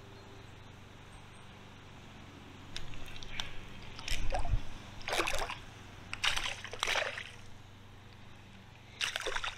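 A small hooked jack pike splashing at the water surface as it is reeled in, in about five short bursts, with a dull knock about four seconds in.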